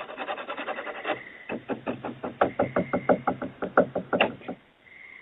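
Scratching at a door, a fast even rasping, then from about a second and a half in a quick run of knocks on the door, about five or six a second, stopping near the end.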